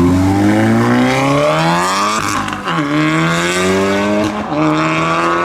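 Mk7-generation VW Golf's turbocharged four-cylinder engine accelerating hard under full throttle, its revs climbing, with two upshifts about two and four seconds in where the revs drop sharply before rising again.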